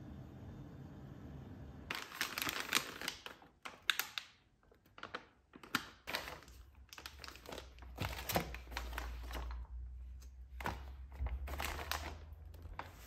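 Plastic meal-kit packaging crinkling and rustling in irregular bursts as the bag and its sealed packets are handled, starting about two seconds in.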